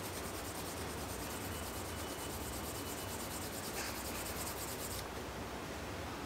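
Fast back-and-forth hand rubbing along the edge of a stitched English Bridle leather handle, burnishing the edge. The even strokes stop about five seconds in.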